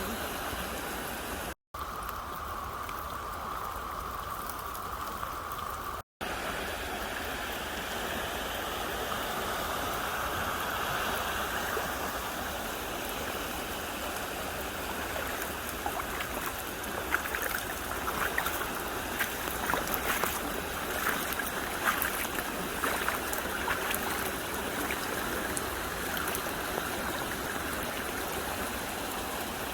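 Little Campbell River water rushing in a steady wash, cut by two very short dropouts in the first few seconds. Scattered small sharp ticks ride over the rush in the second half.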